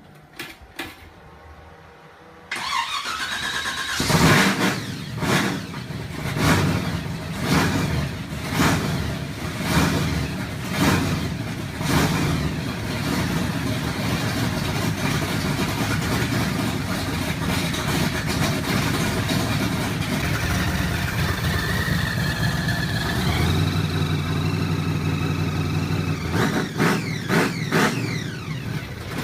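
Muscle car engine cranking and catching about two seconds in, then revved in short blips about once a second before settling into a steady idle, with a few more blips near the end.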